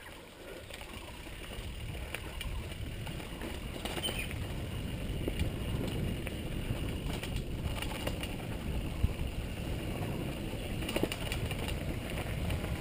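Downhill mountain bike rolling down a dirt forest trail, heard from the rider's helmet camera: a steady low rumble of tyres on dirt and air over the microphone, with scattered sharp knocks and rattles from the bike over bumps.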